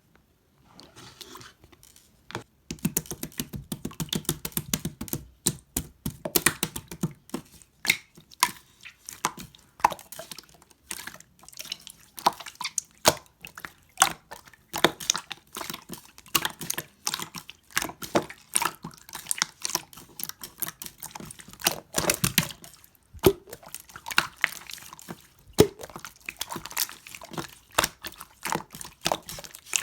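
White slime being squished and worked by hand, giving a dense run of irregular wet clicks and pops.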